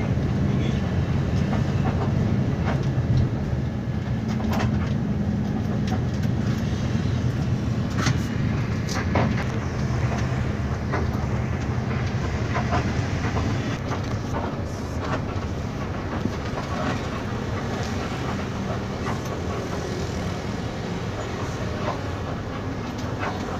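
Intercity bus heard from inside the cabin while driving: a steady low engine and road drone, with scattered clicks and rattles from the bodywork throughout.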